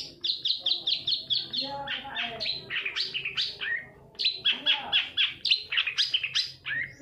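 Long-tailed shrike (cendet) singing a fast run of sharp, high, falling chirps, about seven or eight a second, with softer lower warbling beneath. There is a short lull a little past halfway before the chirping resumes.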